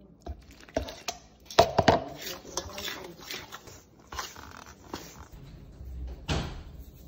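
Dough being mixed in a stainless steel bowl: a metal spoon and hands knocking, clinking and scraping against the bowl in irregular short strokes, loudest about two seconds in.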